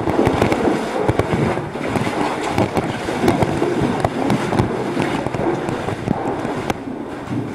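Handling noise of a camera carried through a cave passage, rustling with irregular knocks and clicks as cavers move over the rock; it starts abruptly at the beginning.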